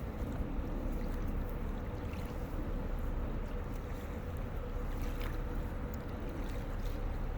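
A passing river boat's engine running in a steady low drone with a faint hum, over some wind and water noise.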